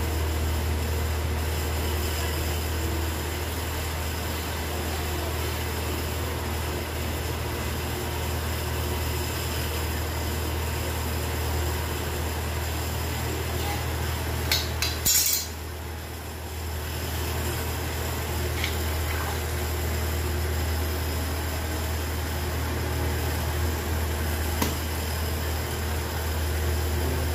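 A steady low hum with an even hiss, broken about halfway through by a quick cluster of sharp knocks and clinks, and one more click near the end.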